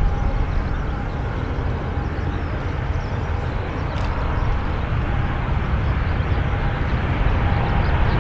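Boeing 737-500's CFM56-3 jet engines rumbling during the landing rollout just after touchdown, with a faint thin whine over the heavy low rumble. The rumble grows louder near the end.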